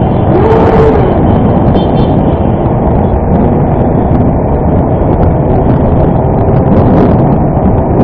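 Motorcycle running on the move, picked up by a camera on the bike: steady, loud engine and road noise mixed with wind rushing over the microphone. A brief rising-then-falling tone sounds about half a second in.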